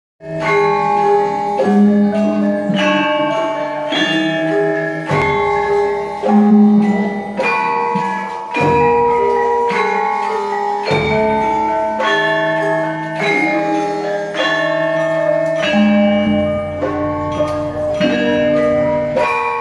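Javanese gamelan playing: bronze metallophones and gong-chimes strike a steady ringing melody, with deep gong strokes coming in every few seconds.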